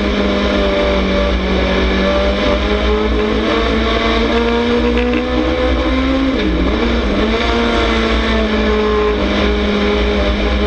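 Dirt late model race car's V8 engine running hard at high revs, heard from the onboard camera. It holds a steady pitch, dips briefly about six and a half seconds in, then climbs back up.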